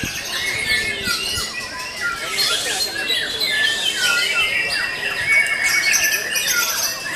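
Several caged songbirds, a white-rumped shama among them, singing all at once: a dense, overlapping run of quick whistles, chirps and trills.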